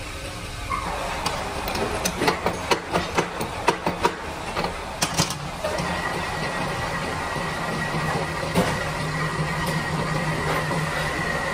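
Metal lathe: a run of sharp metallic clicks and clanks as the tool post and carriage handles are worked, then about halfway through the lathe starts and runs steadily with a high whine as it turns a metal bar.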